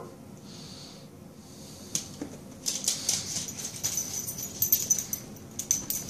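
A cockatoo and a beagle tussling over a plush fox toy on a hardwood floor. The sound is scrabbling and quick sharp clicks, like claws and scuffling on the boards, which grow much busier about halfway in. A brief animal call comes right at the start.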